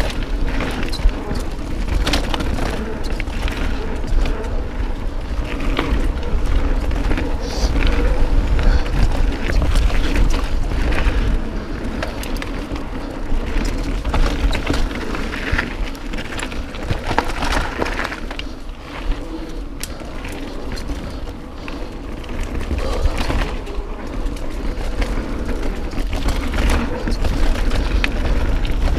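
Mountain bike riding fast down a dirt singletrack: a steady low rumble of wind on the microphone and tyres on the trail, with constant irregular rattles and knocks from the bike over the bumps.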